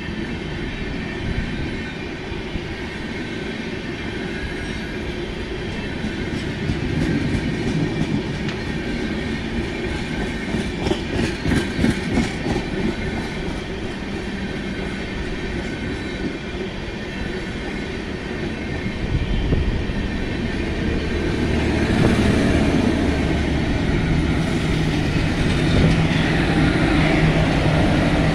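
Passenger coaches of an express train rolling slowly past uphill, wheels clicking over rail joints with a high wheel squeal. From about two-thirds of the way in it grows louder with a steady low hum as the electric banking locomotives pushing at the rear draw near.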